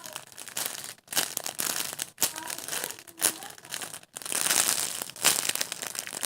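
Plastic crinkling and rustling as a squishy toy is handled and squeezed, with a few short breaks.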